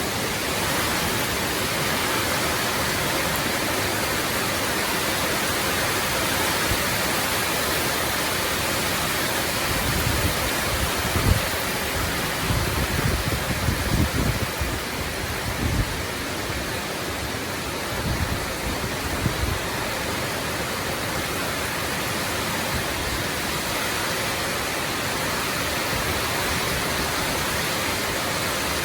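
Heavy rain pouring steadily in a storm, with several low rumbling gusts between about ten and twenty seconds in.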